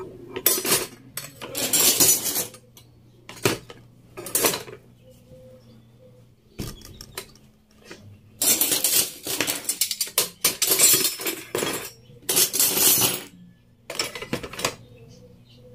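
Metal and plastic kitchen utensils (spatulas, ladles, a potato masher, spoons) clattering and clinking against each other as they are put into a plastic utensil pot, in several spells of rattling with short quiet gaps between.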